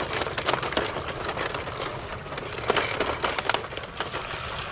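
Plastic toy crane truck rolled through shallow water over wet gravel: a rough, steady crunching with many small clicks.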